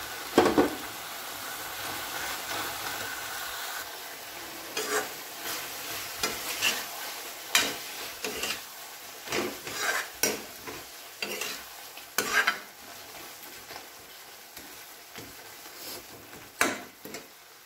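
Metal spoon stirring chopped spring onion greens into a steel pan of frying aloo dum gravy: a sharp clatter just after the start, then irregular scraping strokes against the pan over a steady sizzle that slowly dies down.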